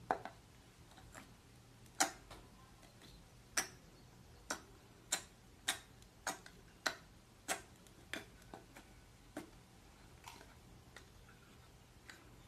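Glossy clear slime in a plastic jar making sharp clicking pops as fingers press into it. About fourteen pops, a run of them roughly every half second through the middle, thinning out near the end.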